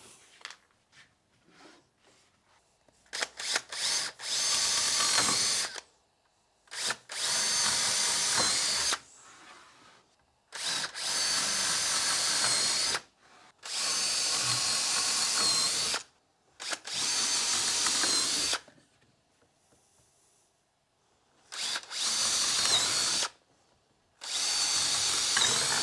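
Electric power drill boring screw holes in the frame pieces, in about seven separate runs of roughly two seconds each with pauses between.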